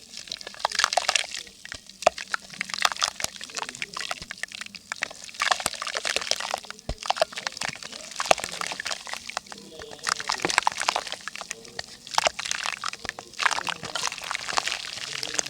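Dry yellow mud crackling and crumbling as water soaks into it: dense runs of tiny crackles that swell and fade in waves.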